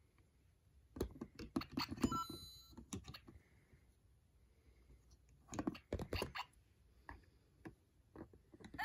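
Plastic clicking and rattling of the LEGO Super Mario figure and LEGO bricks being handled, in two bursts of clicks. A short electronic beep from the figure comes about two seconds in.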